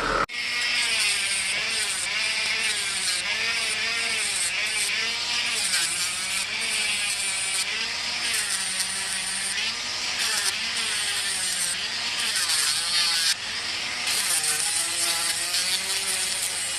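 A small electric power tool's motor running steadily, its pitch dipping and recovering about once a second as the work is pressed against it and eased off.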